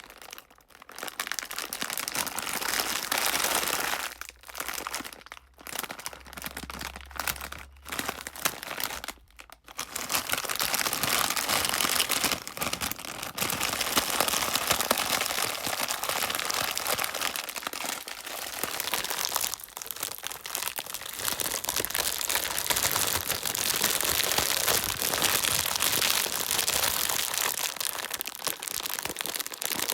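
Crinkly rustling and swishing from a large pack being handled to make an ocean-drum-like wave sound. It stops briefly several times in the first ten seconds, then goes on without a break.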